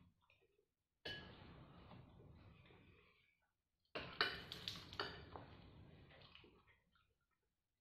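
Metal spoon scraping and clinking against a ceramic bowl while eating, in two bouts: one about a second in and a louder one with a few sharp clinks about four seconds in, each trailing off.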